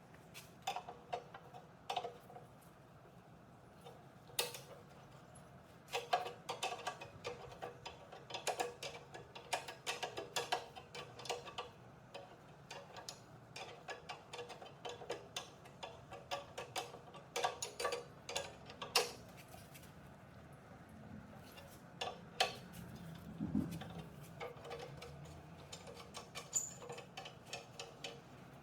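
Light, irregular clicks and clinks in quick clusters, from hand tools and metal parts being handled.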